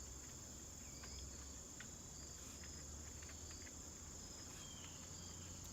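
Crickets trilling in a steady, high-pitched chorus, over a low hum and a few faint ticks.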